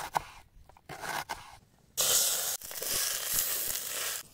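A knife cutting through an onion on a wooden board, a few quick cuts in the first second and a half. About two seconds in, loud sizzling starts as chopped herbs fry in a pot and are stirred with a wooden spoon, stopping just before the end.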